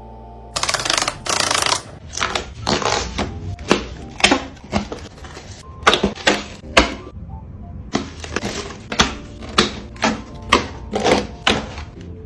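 Close-up handling of packaging while unboxing: about a second of rustling and ripping near the start, then an irregular string of sharp clicks, taps and crinkles.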